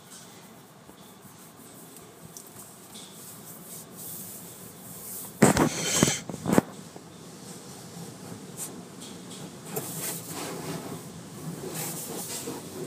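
Car wash water spraying against the car, heard from inside the cabin as a steady hiss, with a loud burst of spray about halfway through and a rougher spell near the end.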